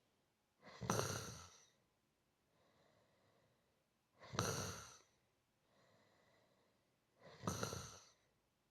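Person snoring in slow rhythm: three rough snores, each about a second long and a little over three seconds apart, with soft breaths between them.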